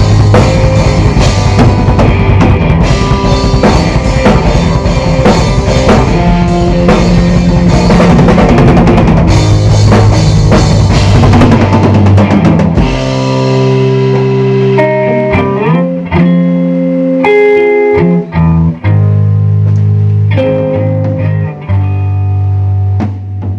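Rock band of electric guitar and drum kit playing an instrumental passage. About halfway through the drums stop, and the guitar carries on with held notes and string bends.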